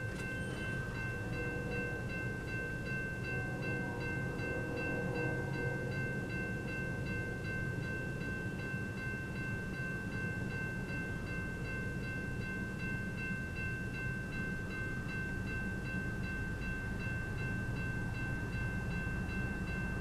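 Railroad crossing warning bell ringing continuously, signalling an approaching train, over a steady low rumble.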